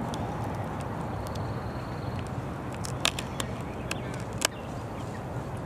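Steady low rumble of a boat's motor under way, with a few sharp clicks about three to four and a half seconds in.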